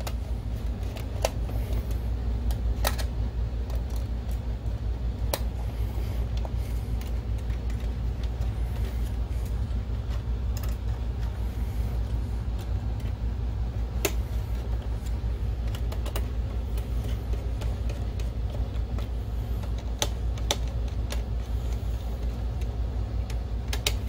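A screwdriver tightening small screws into a projector's sheet-metal shield, giving scattered sharp clicks and ticks several seconds apart. A steady low hum runs underneath.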